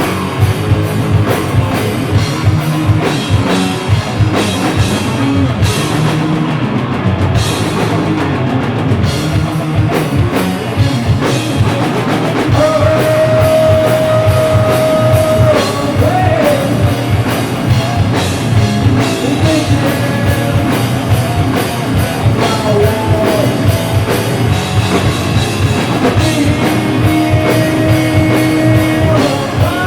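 Live stoner metal band playing loud rock with a steadily pounding drum kit. A long held note comes in about halfway through and another near the end.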